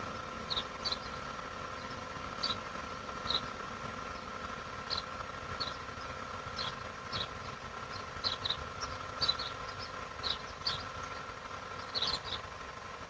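Outdoor ambience: small birds chirping in short, high notes, a few each second and irregularly spaced, over a steady background hum with a few fixed tones.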